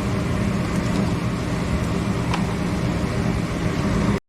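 Gas furnace running steadily with its burners lit, a low rumble under an even rush of air, with one faint click partway through; it is running normally now that the exploded rollout switch has been replaced and it is out of lockout. The sound cuts off abruptly near the end.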